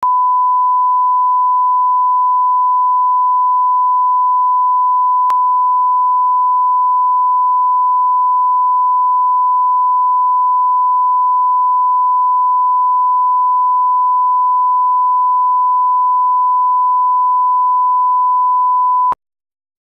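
Steady 1 kHz reference tone, the line-up tone that runs with colour bars at the head of a tape to set audio levels. It holds one unchanging pitch at a loud level, with a faint click about five seconds in, and cuts off abruptly shortly before the end.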